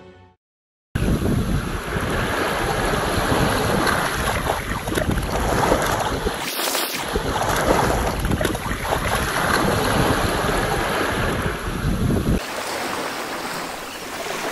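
Small waves washing onto a gravel beach, with wind buffeting the microphone. About twelve seconds in the wind rumble drops away, leaving the softer wash of the surf.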